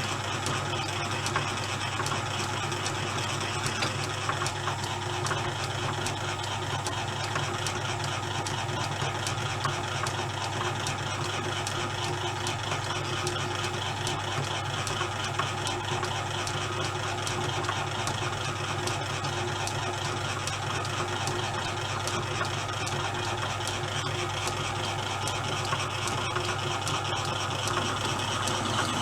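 Pittler C3 lathe from about 1895 running steadily under power. A constant low hum with faint, irregular mechanical ticking throughout.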